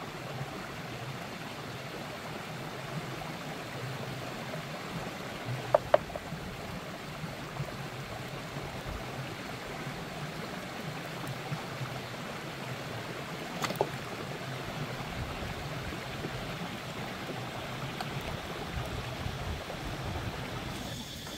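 Shallow rocky stream running steadily, with a few sharp clicks now and then, about six seconds in and again near fourteen seconds.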